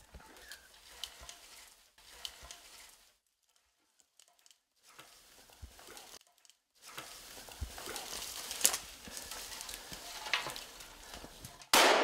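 Footsteps and rustling through forest brush with a few twig snaps, broken by two short silent gaps. A little before the end, a single loud rifle shot rings out, leaving a trailing echo.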